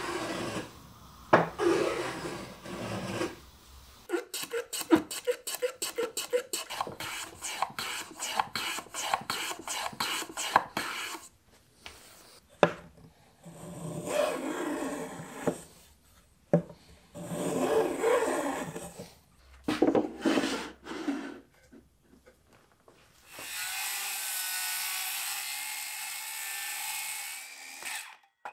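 Small metal hand plane shaving the dovetailed corner of a wooden box, stroke by stroke, followed by a run of quick, even hand-tool strokes on wood, about three or four a second, then slower groups of strokes. Near the end a RIDGID circular saw runs through a cut for about five seconds and then stops.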